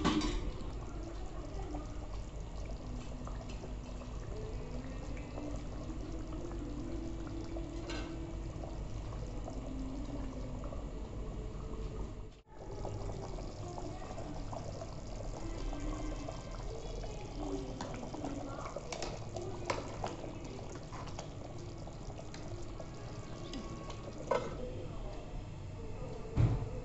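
Rista gravy simmering and bubbling in a metal kadai, with a ladle scooping and pouring the gravy back in. There are a few short knocks of the ladle against the pan.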